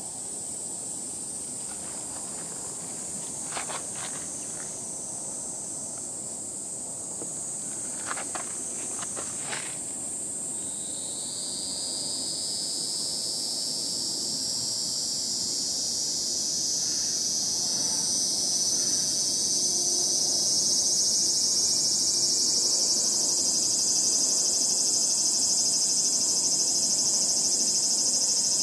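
Cicadas singing in the trees: one steady high drone, joined about ten seconds in by a second, louder chorus that swells towards the end. A few brief clicks in the first ten seconds.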